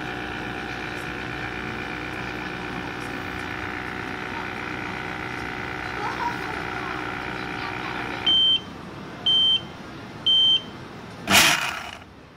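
Vacuum blender's pump running with a steady hum as it draws air out of the jar, stopping after about eight seconds. Then come three short high beeps about a second apart, signalling the cycle is done. Near the end a loud hiss of about a second follows, the vacuum being released from the jar.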